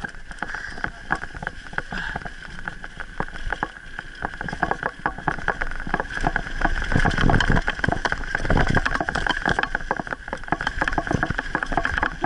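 Mountain bike clattering down a dirt trail: rapid irregular clicks and knocks from the frame, chain and tyres on the rough ground, over a steady high buzz.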